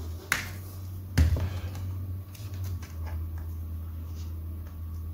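Scattered light clicks and taps of tools and small parts being handled at an electronics workbench, the sharpest about a second in, over a low steady electrical hum that stops near the end.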